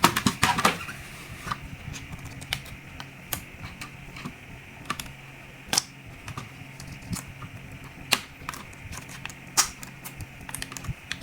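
Irregular light clicks and taps from small laptop parts being handled and fitted during reassembly, a cluster at the start and then one every second or two. A fan hums steadily underneath.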